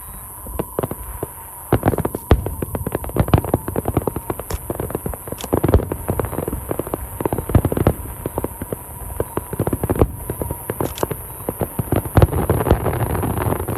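Aerial fireworks bursting in quick succession, dozens of sharp bangs. A dense crackling flurry comes near the end.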